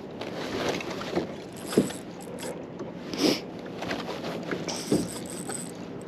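Water lapping and slapping against the hull of a small boat, with several sharper slaps or knocks, the loudest a little after the middle.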